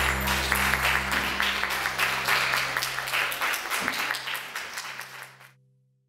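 Audience applauding, dense irregular clapping, with the band's last low notes still ringing underneath; the sound fades away about five and a half seconds in.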